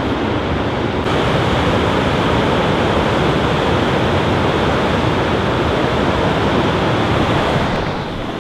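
Water rushing through a dam's open spillway gates into the tailwater: a steady, loud rushing noise. It grows louder and brighter about a second in and drops slightly near the end.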